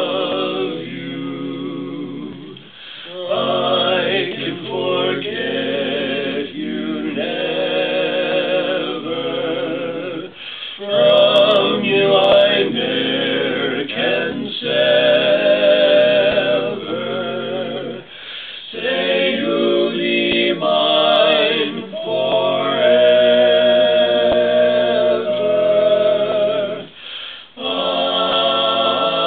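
Vocal quartet singing a cappella in harmony: held chords with vibrato, in phrases separated by short breaks.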